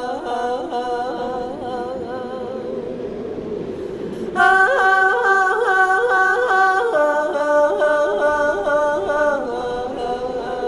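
A woman singing a cappella, an ornamented, wavering melody with no accompaniment. The voice grows louder about four seconds in.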